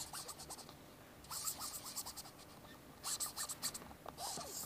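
Hands scratching and rubbing on the surface of a football in quick strokes, in bursts about a second long, with short squeaks.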